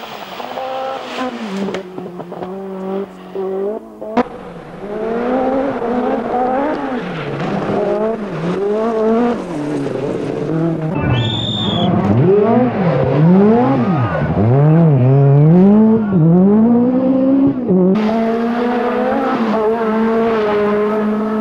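Peugeot 205 T16 Group B rally car's turbocharged inline-four at full throttle, revs climbing and dropping again and again through gear changes as it passes. A brief high whistle sounds about eleven seconds in, and the engine sound jumps abruptly twice as one pass gives way to another.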